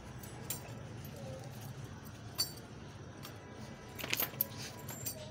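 Metal chain leash and collar jingling as the dog moves: a few separate short clinks, then a quick cluster of them about four seconds in, over a low steady hum.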